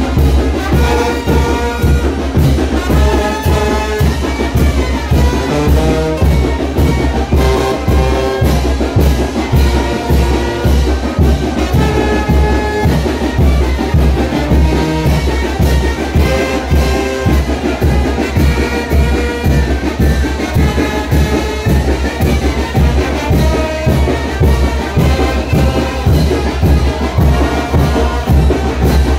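Brass band playing chinelo dance music: trumpets and trombones carrying the melody over a steady drum beat.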